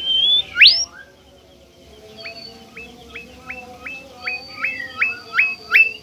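Bimoli songbird singing: a long whistled note ends just after the start, then comes one loud upward-sweeping whistle, then a run of about nine short rising notes, each a little under half a second apart, growing louder over a thin steady high tone.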